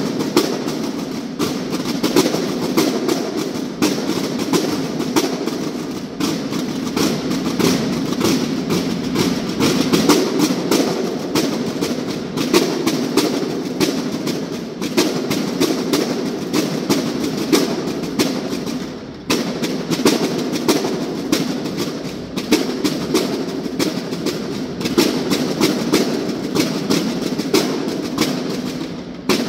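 A banda de guerra's field-drum section playing a fast, unbroken marching cadence in unison, with a brief break about 19 seconds in.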